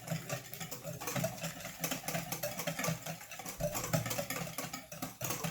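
Eggs, sugar, vanilla and vegetable oil being beaten together in a mixing bowl: a steady, rhythmic churning with light clicking against the bowl.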